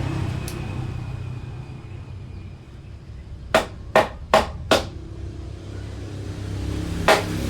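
Hammer blows on a wooden door frame as it is fitted together: four quick sharp strikes about a third of a second apart a little past halfway, then another near the end, over a steady low hum.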